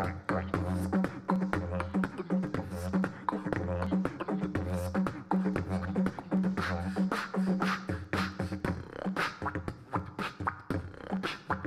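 Beatboxing into a microphone: rapid sharp kick and snare sounds over a held, buzzing bass drone that pulses in half-second blocks.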